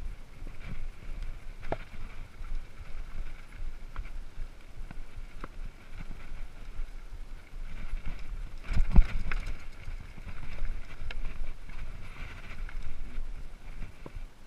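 Mountain bike rattling and knocking over a rocky singletrack, with scattered sharp clicks, wind noise on the microphone, and one heavy thump about nine seconds in.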